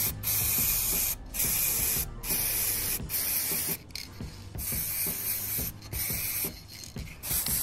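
Aerosol can of K2 high-temperature brake caliper paint spraying in a series of short hissing bursts, each up to about a second long, laying the first coat of red paint onto a brake caliper.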